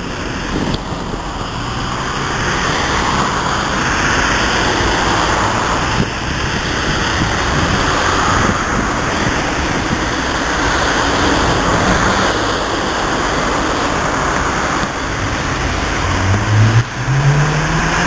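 Steady noise of road traffic going by. Near the end a vehicle engine revs up, rising in pitch.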